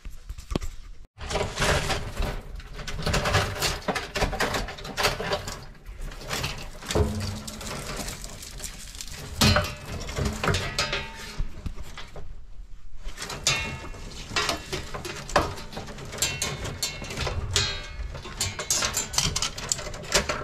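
Old insulated wires being pulled and bent by gloved hands inside a metal electrical panel box: irregular rustling, scraping and clicking of wire against the steel enclosure, with a brief dropout about a second in.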